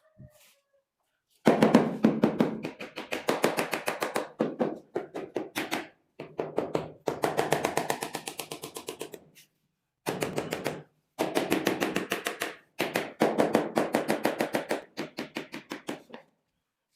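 Rapid, even tapping or chopping strokes, several a second, in runs of one to three seconds with short breaks between them.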